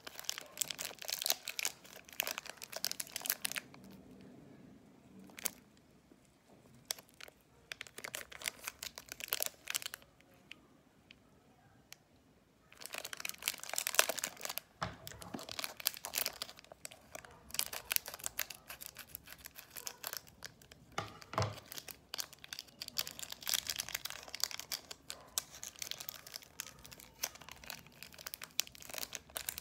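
Plastic wrapper of a chocolate bar crinkling as it is turned over and pressed between the fingers, a dense crackle that thins to scattered crackles from about four to twelve seconds in, then grows dense again.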